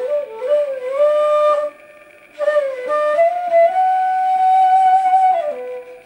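Side-blown bamboo flute (bansuri) playing a slow, bending melody. A short sliding phrase is followed by a brief pause, then a second phrase rises to a long held note that drops away to a softer low note near the end.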